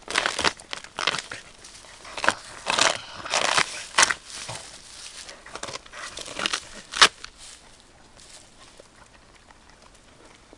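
A dog biting and tearing at the tough outer sheath of a bamboo shoot: irregular crackling and ripping of the husk, with one sharp snap about seven seconds in, then only faint crackles near the end.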